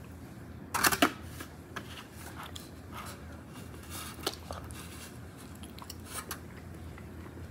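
Close-miked crinkles and clicks of a thin plastic wrapper around a soft peanut butter mochi being handled and bitten into, the loudest cluster about a second in, then scattered small ones.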